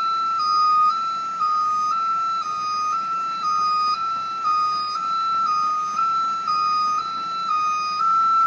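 Warning alarm on a Nordco 6008 hi-lift truck sounding while its scissor-lift deck is lowered: a steady electronic two-tone signal switching between two close high pitches about twice a second.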